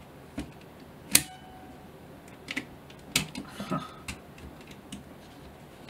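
Sharp clicks and taps of metal parts on a folded Zeiss Ikon Super Ikonta folding camera as it is handled and turned over. There are about half a dozen separate clicks. The loudest comes about a second in and has a brief metallic ring.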